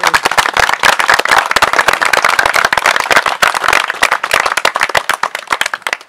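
A small group applauding, with one pair of hands clapping close by and loudest. The clapping thins out near the end.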